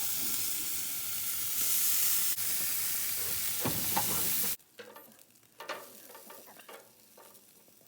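Country-style pork ribs sizzling loudly on a grill grate, a steady frying hiss that cuts off suddenly about four and a half seconds in, leaving only faint quiet sounds.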